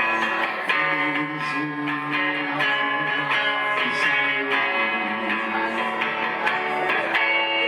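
Guitar strummed through a live song, its chords ringing in a steady rhythm.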